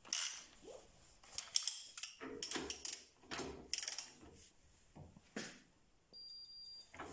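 Digital torque wrench being pulled on a bolt in short strokes, with irregular mechanical clicks and rasps. Near the end a steady high electronic beep sounds for just under a second: the wrench signalling that the set torque of 100 Nm has been reached.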